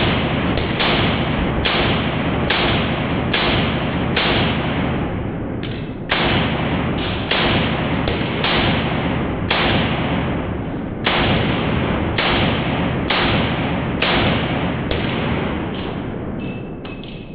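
Semi-automatic pistol fired in steady slow fire: about eighteen shots roughly one a second, each followed by a long echoing ring. The string ends near the end when the magazine runs empty and the slide locks back.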